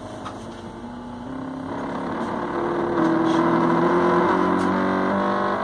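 NEMA 17 stepper motor running under GRBL from an Arduino CNC shield, whining with several pitched tones that jump to new pitches every second or so as the step rate changes. It gets louder about two seconds in.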